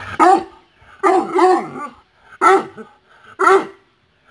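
Askal (Filipino mixed-breed) dog barking: about five short pitched barks in quick groups, each dropping in pitch.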